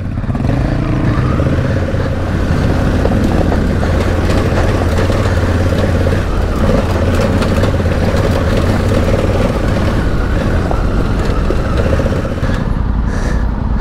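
Honda Africa Twin CRF1100's parallel-twin engine running steadily while riding over a rough, rocky track, with faint scattered clicks over the engine.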